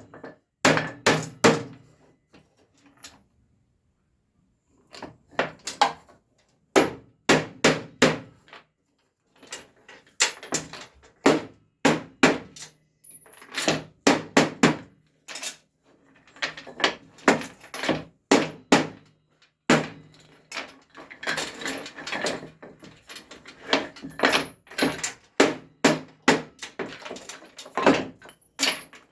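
A metal chain beaten repeatedly against a wooden board to distress its surface: clusters of sharp knocks, often two or three in quick succession, with short pauses between.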